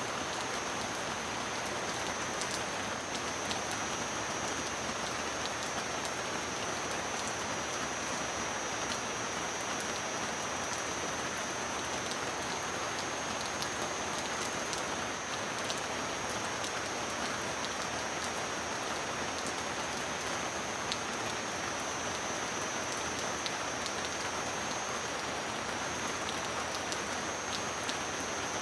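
Steady heavy rain: a dense, even hiss of falling rain with scattered sharp drop ticks.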